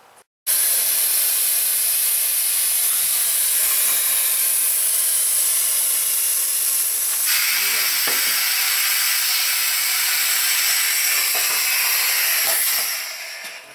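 Compressed air hissing loudly and steadily from a machine shop's air float table, the air cushion that lets the machinist slide a cylinder head into place under the valve spring compressor. The hiss grows brighter about halfway through and fades away near the end.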